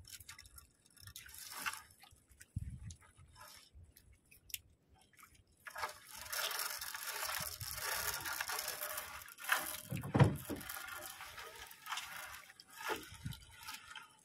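Wet nylon fishing net being hauled in by hand: the mesh rustles and water drips and splashes off it, in sparse bits at first, then continuous from about halfway through. A single louder thump comes about two-thirds of the way in.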